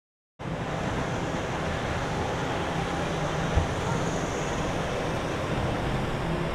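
Outdoor theme-park ambience: a steady wash of crowd chatter and low rumble that starts just under half a second in, with one short thump about three and a half seconds in.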